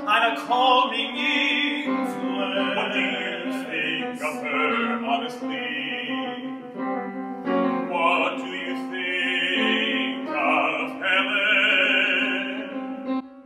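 Operatic male singing with vibrato over a piano accompaniment: a scene from a chamber opera sung in rehearsal.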